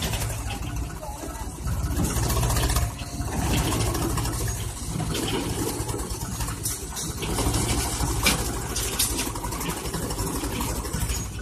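Farm tractor's diesel engine running steadily, its trolley tipped up for unloading.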